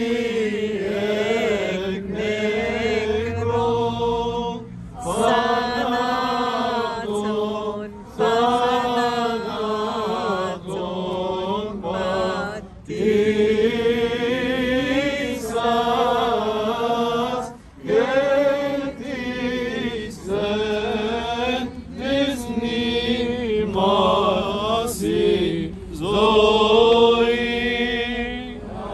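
Orthodox Easter liturgical chanting: sung voices holding long, wavering melismatic notes in phrases of a few seconds, with brief breaths between them.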